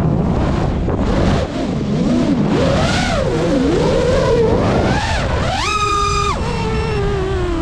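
FPV quadcopter motors and propellers whining over a rush of air, the pitch sweeping up and down with the throttle. About five and a half seconds in it jumps to a held high whine for about half a second, then drops away.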